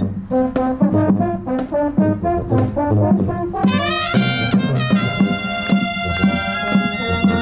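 Marching band brass (trumpets, euphoniums and other horns) playing short accented chords over a beat struck about once a second. About three and a half seconds in, the full band swells into a loud, bright held chord.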